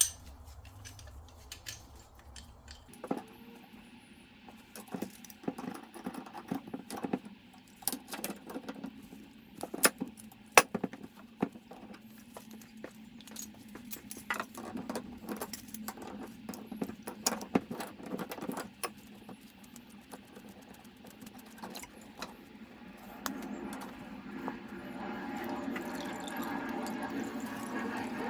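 Irregular metallic clinks, knocks and scrapes of a spanner and the brass compression fittings as plumbing pipework under a sink is undone and taken off. Near the end a steady rushing noise builds up.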